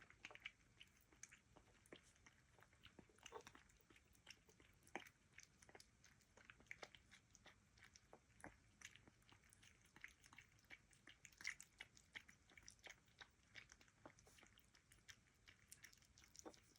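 A mixed-breed puppy chewing food, faint quick irregular crunches and bites.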